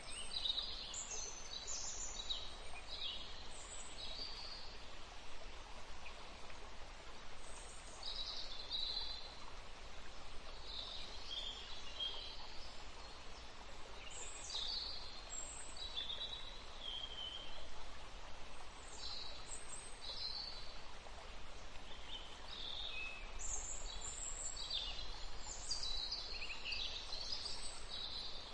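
Graphite pencil scratching on paper as lines are sketched: faint, irregular short strokes, each lasting under a second, with pauses between them.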